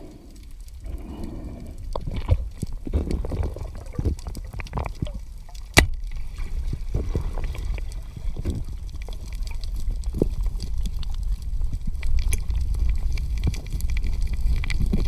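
Underwater sound picked up by a diver's camera: a muffled low rumble of moving water with scattered clicks and knocks, one sharp click about six seconds in.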